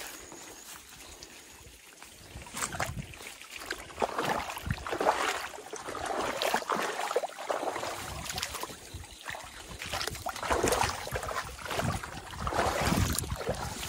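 Footsteps through wet grass and mud with plants rustling, coming in irregular surges about once a second, over water trickling in a small irrigation channel.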